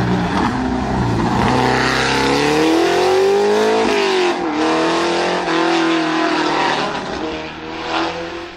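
De Tomaso Pantera race car's V8 accelerating hard, rising in pitch through the gears with an upshift about four seconds in, then fading as the car pulls away near the end.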